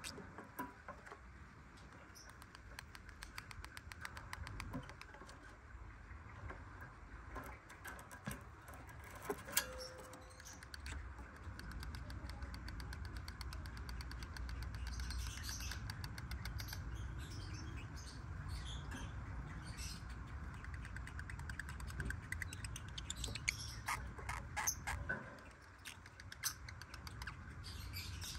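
Black-winged lovebirds making short, faint chirps among scattered clicks and taps, over a low steady hum.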